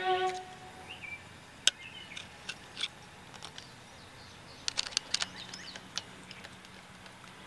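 Scattered small clicks and ticks, several bunched together about five seconds in, from a flat-head screwdriver working the screw on a brass connector on a copper antenna rod. A few faint bird chirps come in early on top of quiet outdoor background.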